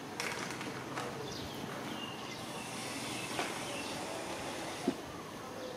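Outdoor ambience with birds chirping now and then, and a few soft knocks and rustles from movement close by.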